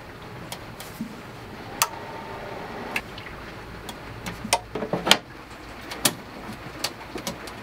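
Sharp clicks and knocks as a Xantrex Freedom XC 2000 inverter/charger is switched on at its front-panel button and handled, with a faint steady tone for about a second after the first loud click. The unit is powering up.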